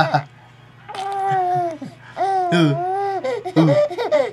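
Baby cooing and babbling: two long, drawn-out coos, the second one wavering, then a few short sounds near the end.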